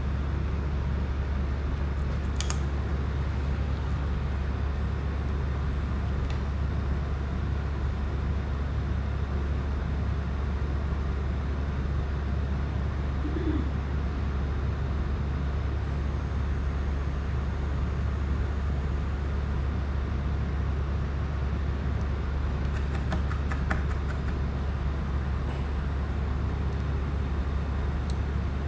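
A steady low hum with an even hiss over it, broken by a light click about two seconds in and a quick run of clicks near the end.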